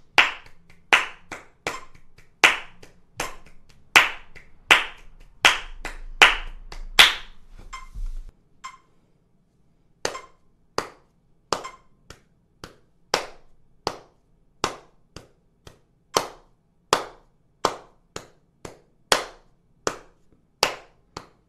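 Hand claps in time with a metronome, switching between two and three claps per beat. Brisk and close together at 80 BPM for about the first eight seconds, then, after a short pause, slower and further apart at 40 BPM, with a short metronome beep faintly heard on some beats.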